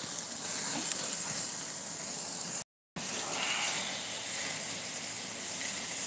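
Steaks sizzling over a flaring charcoal grill fire: a steady hiss of meat and fat cooking in the flames. The sound cuts out completely for a moment a little under three seconds in.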